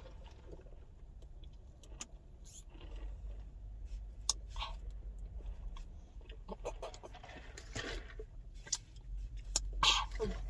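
Quiet pause: scattered small clicks and rustles with faint murmured voices over a low hum, and a short louder sound near the end.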